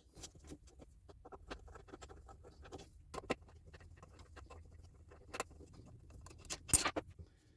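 Allen key working the bolts of a mitre saw's table extension, with the metal parts handled: a run of small irregular clicks and scratches, and a louder knock near the end.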